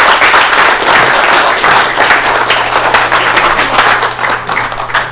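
Audience applauding: dense, many-handed clapping that thins out and fades near the end.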